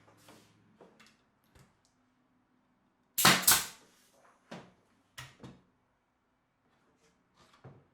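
Sharp knocks and clacks of wood pieces and hand tools being handled on a workbench: two loud strikes close together about three seconds in, then a few lighter knocks.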